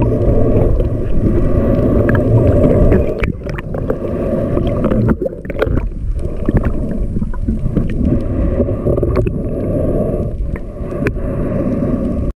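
Muffled underwater sound from a camera held underwater while snorkelling: a low, steady rumble of moving water with scattered clicks and knocks.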